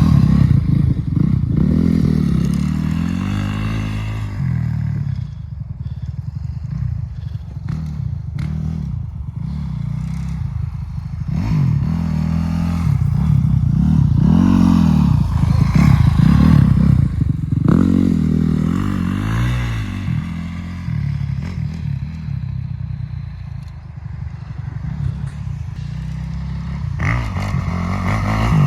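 450cc dirt bike's single-cylinder four-stroke engine under riding, its revs rising and falling again and again as the throttle is worked, with some clatter.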